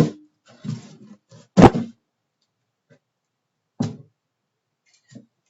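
Packages being dropped or thrown down hard, heard as heavy thuds: one right at the start, a louder one about a second and a half in, another near four seconds, and a faint knock near the end.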